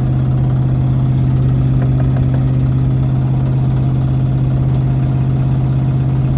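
SN95 Ford Mustang's 4.6-litre two-valve V8 running at a steady cruise, a constant low drone heard from inside the cabin.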